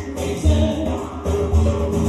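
Live pagan folk band playing: voices singing a slow melody over a low didgeridoo drone, with drum beats and guitar.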